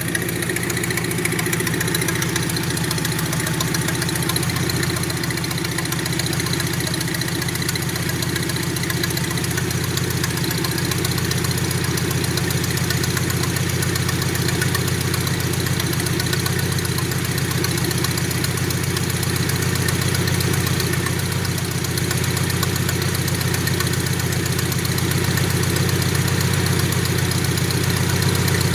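Nissan 720 pickup's four-cylinder engine idling steadily while warming up from a cold start.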